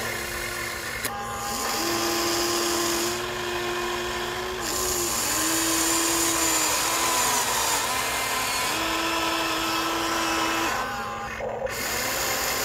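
Huina remote-control toy excavator's electric motors whining as it works its boom and bucket. The whine comes in spells of about two seconds, stepping up and down in pitch as each movement starts and stops.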